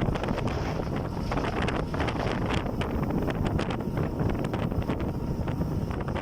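Wind buffeting the microphone: a steady, rough rumble with constant crackling gusts.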